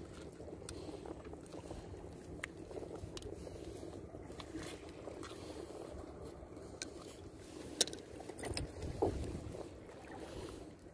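Steady outdoor rumble of wind and sea, with a few sharp clicks and rustles as fishing pliers and a plastic bag are handled.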